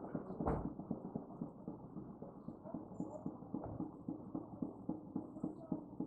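Forest ambience: a steady, rapid low tapping of about four to five knocks a second, with faint high chirps scattered above it.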